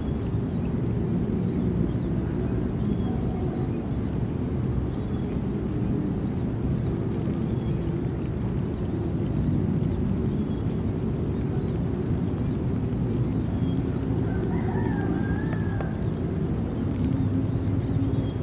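Steady low outdoor rumble with a faint hum, over which faint short chirps come and go; about three-quarters of the way in, a brief wavering call rises and falls.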